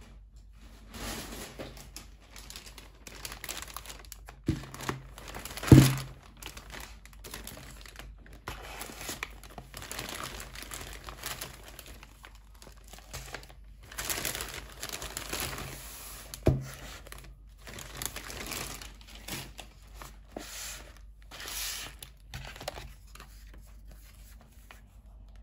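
A plastic shopping bag and wrapping paper rustling and crinkling as wrapped parcels are lifted out and handled, with a few sharp knocks on the table, the loudest about six seconds in.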